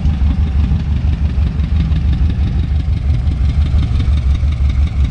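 Honda Pop 110i motorcycle's single-cylinder four-stroke engine running, a steady low rumble.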